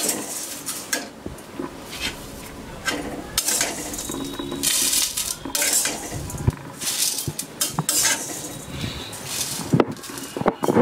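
Metal spatula stirring and scraping dry roasted flattened rice (chura) and fried peanuts around a metal kadai, with irregular knocks and clinks of the spatula against the pan.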